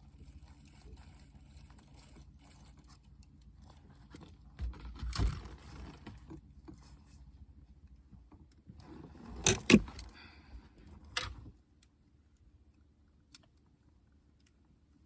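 Fishing tackle being handled: light rattling and scraping, with clattering knocks about five and ten seconds in and one sharp knock a little later.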